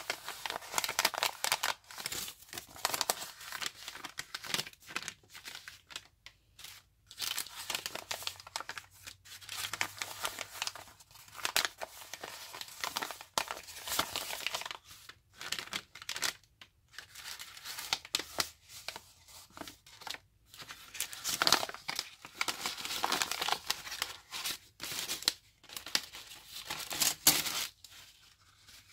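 Coffee-dyed, oven-dried paper envelopes being handled and shuffled by hand, crinkling and rustling in irregular bursts with short pauses between them.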